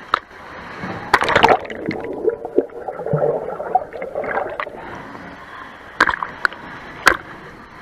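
Seawater splashing and sloshing against a camera held at the surface by a swimmer, with a loud splash about a second in, muffled gurgling while it is underwater, and two sharp splashes near the end.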